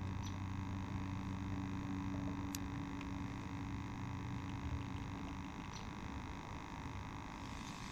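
A low steady hum, its lowest tones fading out about five and a half seconds in, with a sharp click near the middle and a few faint ticks.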